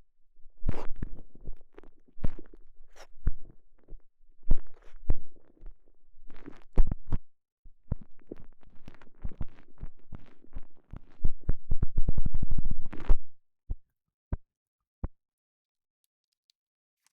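Close-miked handling noises: rubbing and scraping with sharp clicks, quickening near the end into a fast run of taps, then three single clicks before it falls silent.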